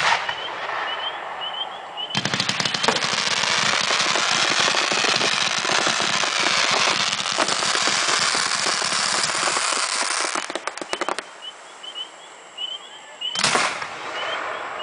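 Fireworks: an aerial shell bursts with a bang at the start, then about two seconds in a dense, rapid crackling of many shells and crackle bursts going off together, like machine-gun fire, lasting some eight seconds before thinning to a few scattered pops. Another single bang comes near the end.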